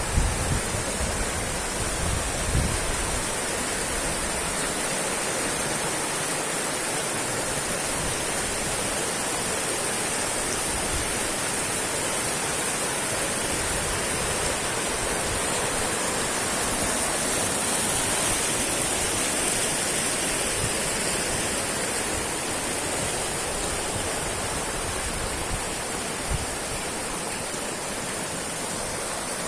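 Roaring river: fast water rushing in a steady, dense wash, swelling slightly about two-thirds of the way through. A few low bumps in the first seconds.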